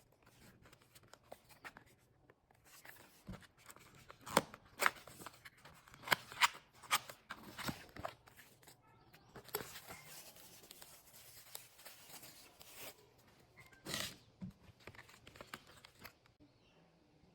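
Handling of a BT100 wireless membrane keyboard: irregular clicks and taps, with several louder knocks and a stretch of rustling in the middle.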